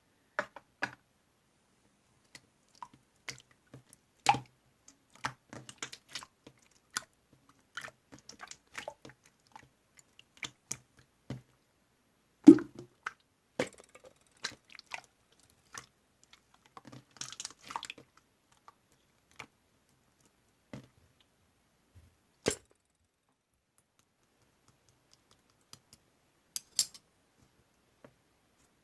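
Slime being pressed and poked by hand, making scattered small wet clicks and pops with short quiet gaps; the loudest pop comes about halfway through.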